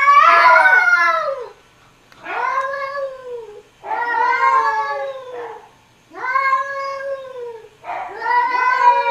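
Cats caterwauling in a face-off: about five long, drawn-out yowls in a row, each rising and then falling in pitch, with short pauses between them. These are the hostile warning yowls of cats squaring up to each other.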